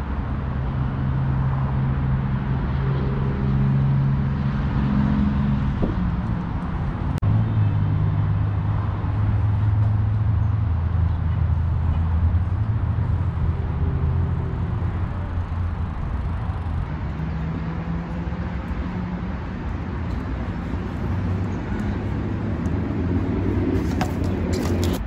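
Steady low rumble of city traffic, with a vehicle engine humming and shifting in pitch now and then. A few sharp clicks near the end.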